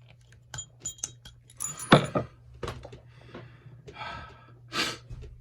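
A metal trick bolt puzzle being handled and twisted, with scattered metal clicks and clinks and a louder knock about two seconds in, over a steady low hum.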